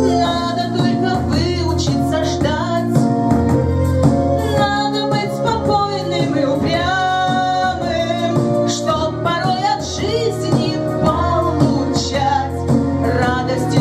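A song with a female voice singing a melody over an instrumental backing track.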